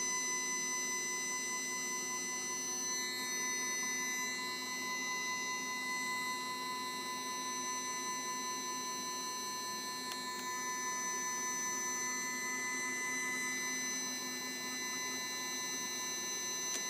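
Stepcraft 840 CNC router's stepper motors driving an axis at a constant feed towards its maximum travel limit. The sound is a steady whine of several held tones.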